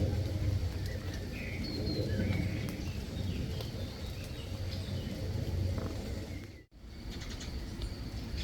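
Garden birds giving short scattered chirps over a steady low rumble. The sound cuts out briefly about two-thirds of the way through.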